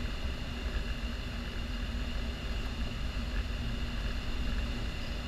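Steady rush of air over the closed canopy and fuselage of a glider in flight: an even, low rumbling hiss with no engine sound.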